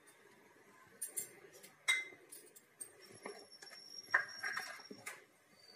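A few scattered light clicks and taps from a cup and utensils handled around a stainless steel mixing bowl of gram flour and yogurt, with one sharper tap about two seconds in.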